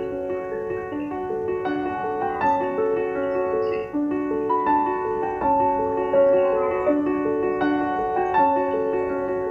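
Background piano music: a gentle melody of sustained notes in an even rhythm.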